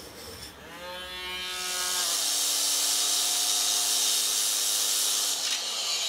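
Small electric rotary tool whirring up to speed about a second in, then a loud, steady hiss as it sands metal, most likely cleaning up the freshly cast iron skillet.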